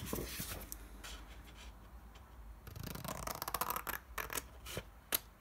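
Scissors cutting a sheet of printed paper: blade snips and paper rustling, with a run of quick snips about three seconds in and a single sharp click near the end.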